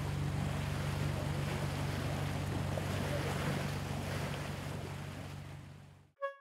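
A small boat's engine running with a steady low hum under wind and splashing water noise, fading out about six seconds in. A few bright musical chime notes begin right at the end.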